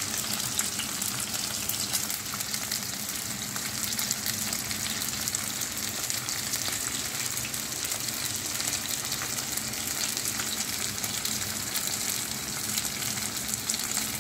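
Whole bisugo (threadfin bream) frying in hot oil in a pan: a steady, dense crackle of many tiny pops.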